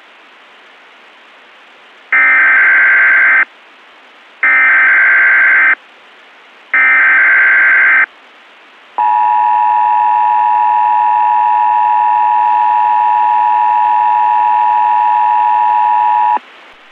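Emergency Alert System tones: three short buzzing data bursts of the SAME header, each just over a second, then the long, steady two-tone attention signal, which cuts off near the end after about seven seconds. A steady hiss runs underneath.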